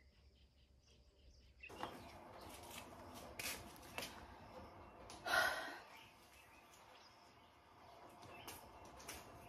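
Faint outdoor background noise with a few light clicks and a short breathy sound about five seconds in. The track is dead silent for the first second and a half and again for about two seconds near the end.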